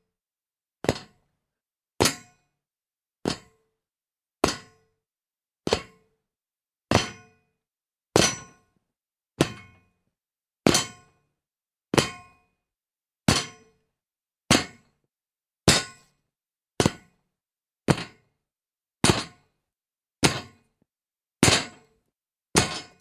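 Feet landing from jumps onto a metal gate: a series of separate clanging impacts about every 1.2 seconds, each with a short metallic ring that dies away within about half a second.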